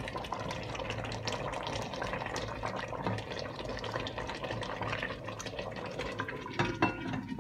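Chicken curry bubbling and spitting in a pot on high heat as a wooden spoon stirs it. A glass lid is set on with a few knocks near the end.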